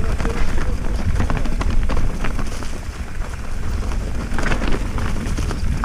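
Mountain bike riding down a loose, rocky trail: the tyres crunch over stones and the bike rattles, with many irregular clicks and knocks over a steady low rumble.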